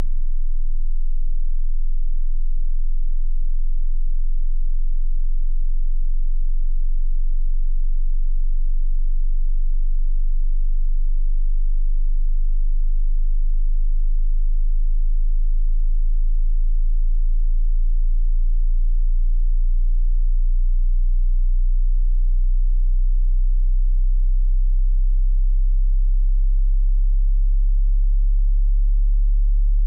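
Pure sine test tone of a hearing-range sweep, a very deep steady hum. It climbs slowly in pitch, passing 26 Hz about halfway and 34 Hz near the end, to test how low a listener can hear.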